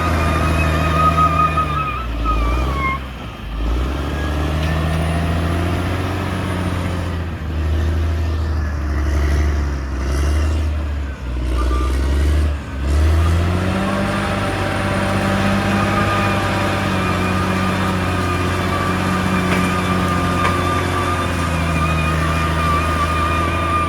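CAT D6R XL bulldozer's diesel engine running steadily under load, with a high, steady whine over it. The engine note dips briefly twice, about three seconds in and again about halfway through.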